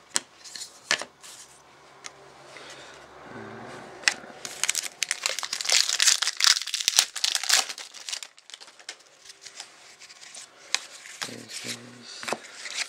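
Foil trading-card pack wrapper being crinkled and torn open by hand, with scattered sharp clicks of handling and the densest crinkling a little before the middle.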